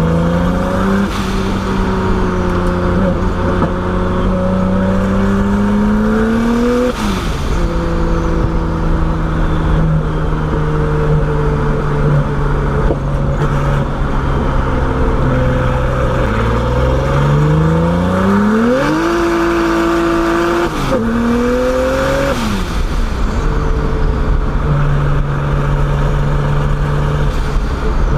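Turbocharged BMW E30's engine driving along. The revs climb slowly for several seconds, drop sharply, then hold steady. Around the middle they rise quickly to a held high pitch, fall off sharply twice, and settle into a steady cruise, all over a constant layer of road noise.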